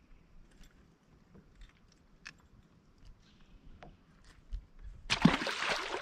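A few faint clicks of handling, then a bass tossed back into the water lands with a loud splash about five seconds in.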